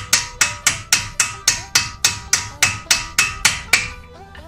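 Rapid, evenly spaced hammer blows on steel at a car's front hub, about four a second, while freeing the driveshaft. The hammering stops about four seconds in.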